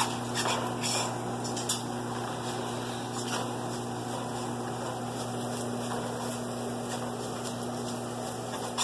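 Masala spices, onion and garlic frying in oil in a pot: a steady sizzle over a low, constant hum, with a few light scrapes and knocks of stirring in the first few seconds.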